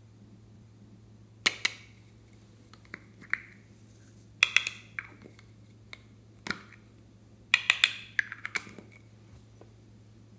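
Sharp plastic clicks and taps in several short clusters as a small plastic container's lid is popped open and the container is handled and tapped, with the busiest run of clicks near the end.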